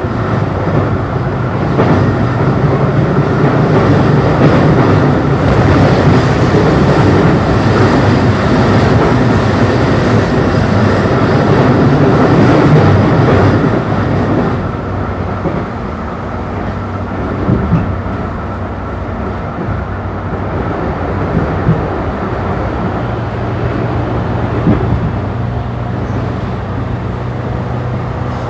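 Running noise of a JR E235-series electric train heard from inside the carriage: a steady rumble of wheels on rail, louder for about the first half and then a little quieter with a steady low hum, with a few short knocks in the second half.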